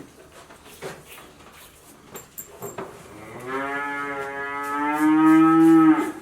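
A dairy cow mooing: one long moo of about three seconds that starts halfway through, grows louder toward its end and stops suddenly. A few faint knocks come before it.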